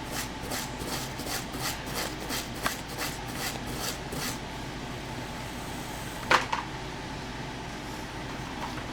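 Quick back-and-forth scrubbing strokes, about three a second, rubbing rust off a small steel revolver part (the cylinder release); the scrubbing stops about four seconds in. A single sharp click about two seconds later.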